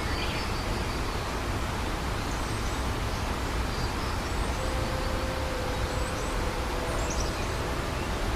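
Steady, even rushing noise, deepest at the bottom, with a few faint high chirps now and then.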